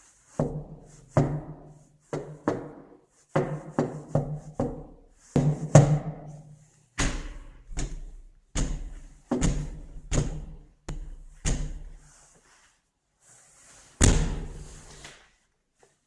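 Someone banging on a door: about twenty heavy, irregular blows with a short boom after each, then a pause and one loud bang near the end.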